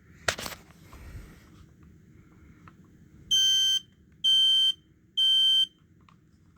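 A sharp click near the start, then a smoke alarm sounding its test: three loud, high-pitched beeps of about half a second each with half-second gaps, the temporal-three alarm pattern.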